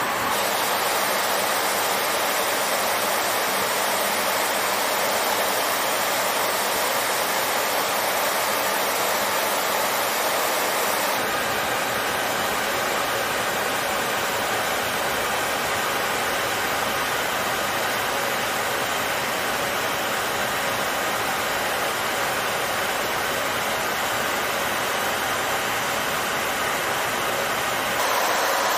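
Steady in-flight noise inside a B-52H Stratofortress: an even hiss of jet engines and rushing air with faint steady hums. Its tone shifts slightly about eleven seconds in and again near the end.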